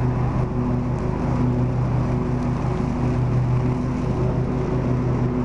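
Riding lawn mower engine running steadily as the mower drives along.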